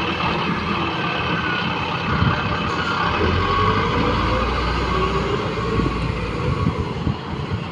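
Caterpillar wheel loader's diesel engine running hard. About three seconds in it revs up with a heavier low rumble as the bucket tips its load of earth into the truck, then keeps pulling as the loader backs away.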